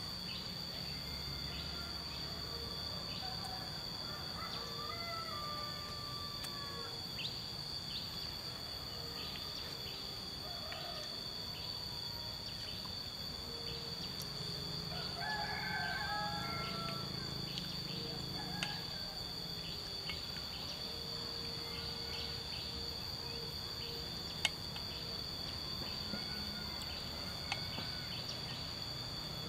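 Steady high-pitched insect drone, with a bird calling twice, about three seconds in and again around fifteen seconds, and faint clicks of chopsticks against a cooking pot.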